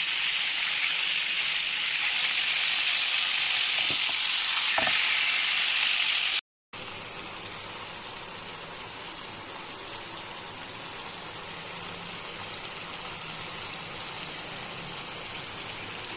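Marinated chicken pieces sizzling as they shallow-fry in hot oil in a pan. The sizzle is louder for the first six seconds, breaks off for a moment, then carries on softer.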